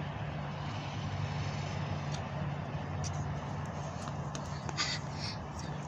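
Steady low hum of an idling vehicle engine, with a few faint short clicks and a brief noisy burst about five seconds in.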